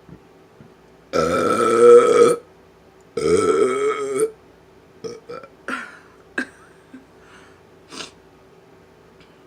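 A person burps twice on purpose, two long, loud, pitched burps of over a second each, one right after the other. A few short, faint mouth clicks follow.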